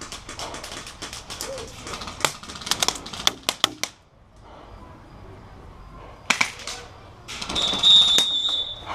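Airsoft guns firing: a run of irregular sharp shots over the first four seconds and another short cluster about six seconds in. Then a steady, high electronic beep starts near the end and holds.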